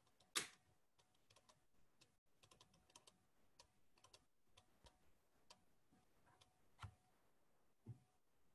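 Faint, irregular clicking and tapping at a desk, with a louder click about half a second in and two soft thumps near the end.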